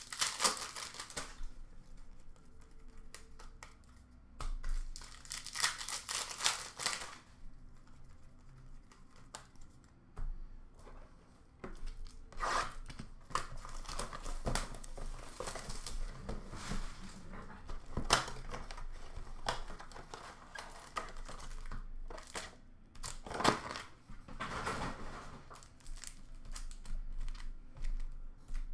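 Hockey card pack wrappers being torn open and crinkled by hand, with cards handled and set down, in irregular rustling bursts and sharp clicks.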